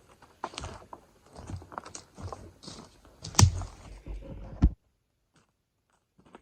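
Irregular crunching and rustling with two sharp knocks, the second the last loud sound; it then cuts off abruptly, leaving only a few faint clicks.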